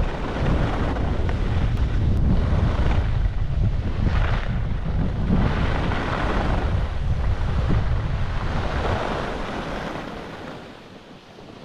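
Wind buffeting the microphone: a loud low rumble with gusting rushes that eases off about ten seconds in.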